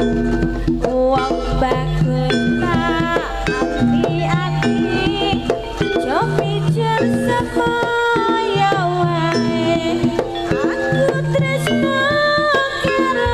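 Live Javanese jaranan accompaniment: hand drums and a low repeating gong-like pattern under a high, wavering melody line.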